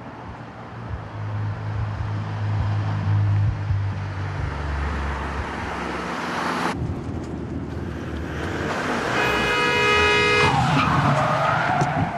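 Car engine running and growing louder as an Audi saloon approaches. After a sudden cut, a vehicle horn blares for about a second, then tyres squeal as the car swerves across in front of a van.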